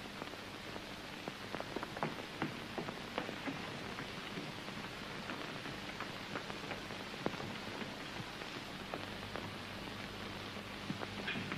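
Surface noise of an early 1930s sound-film optical soundtrack: a steady hiss peppered with irregular crackles and pops, over a faint low hum.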